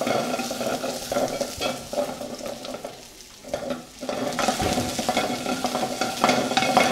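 Kitchen cooking sounds: food sizzling in a pan, with a utensil stirring and scraping and small clicks throughout. It goes quieter for a second or so midway, then picks up again.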